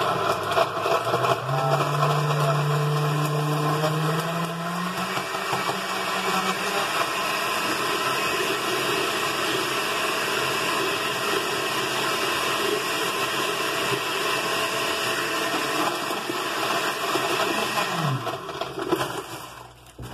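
Countertop blender running, blending chunks of pineapple, melon and ice in juice: a loud steady whir whose motor tone rises in pitch a couple of seconds in. It winds down and stops near the end.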